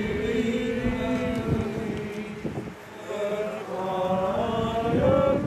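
Outdoor congregation singing a hymn together in held notes, with a brief pause between lines about halfway through.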